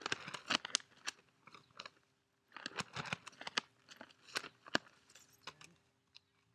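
A large cloth flag on a pole snapping and flapping as it is twirled, heard as rapid crackling snaps in two bouts: one in the first second and a longer one from about two and a half seconds in to about five seconds.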